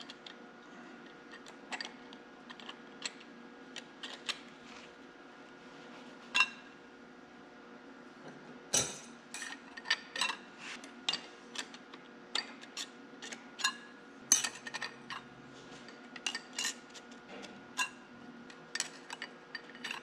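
Steel and fiber clutch discs being laid one by one onto the over/under powershift clutch pack of an Oliver 1855 tractor, giving irregular sharp metallic clinks, the loudest about nine seconds in. A steady hum runs underneath.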